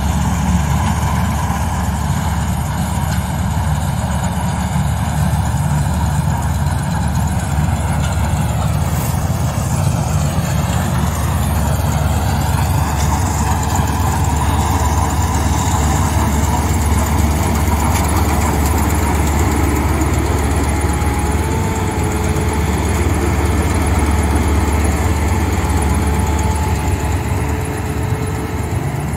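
Tracked combine harvester running steadily under load as it cuts and threshes ripe rice: a continuous low engine drone, with a faint thin whine higher up from about two-thirds of the way through.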